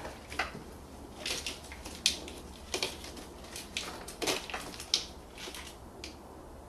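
Plastic airbox parts being handled in a car's engine bay: irregular clicks, knocks and scraping rustles that stop about six seconds in.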